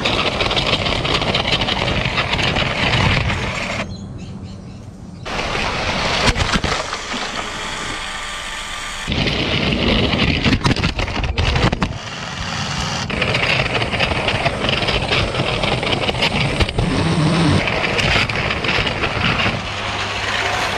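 LEGO train running along plastic track as heard from a camera riding on it: a continuous running rattle from the small motor and wheels, with frequent sharp clicks. The sound changes abruptly several times where shots cut, and drops lower for a moment about four seconds in.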